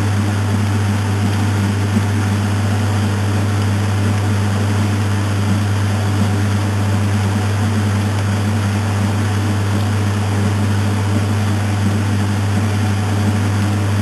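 Maytag Atlantis top-load washing machine agitating a full tub of clothes and water: a steady hum from the motor and drive, with water and clothes churning.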